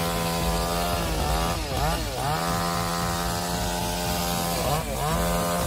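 Chainsaw running at high revs while cutting. The engine pitch dips briefly and climbs back, about two seconds in and again near the end.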